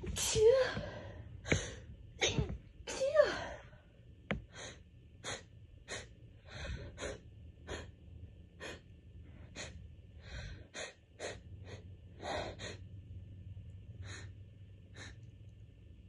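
A woman's allergy sneezing fit: sneezes and sharp gasping in-breaths in the first few seconds, then a long run of short quick sniffs, about one or two a second, that thin out near the end.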